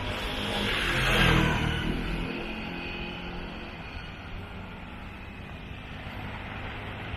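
Road traffic: a motor vehicle passes close by, its noise swelling to a peak about a second in and then fading, over a steady engine hum.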